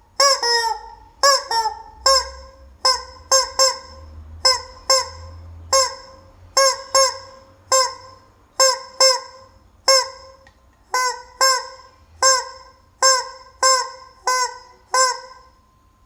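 Rubber chicken squeeze toy squawking over and over, short honking squeals about one or two a second, often in quick pairs.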